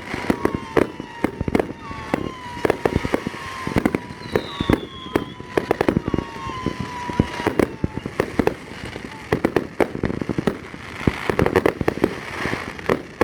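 Fireworks display going off in a rapid, continuous barrage of bangs and crackling reports, with thin whistling tones sliding slowly down in pitch through the first half.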